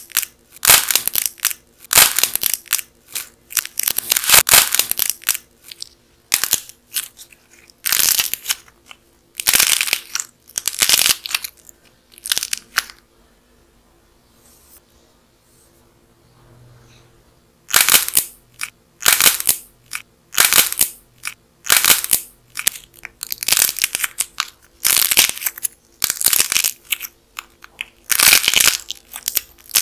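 Dried clay coating on a model sausage cracking, crackling and crunching as it is bent and peeled apart by hand, in repeated short bursts, with a pause of a few seconds about halfway through.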